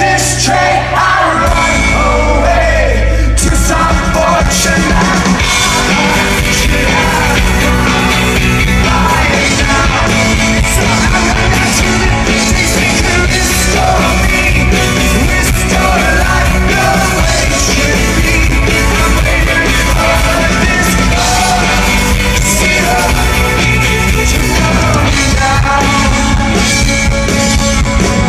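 Rock band playing live with loud guitars, bass and drums and singing.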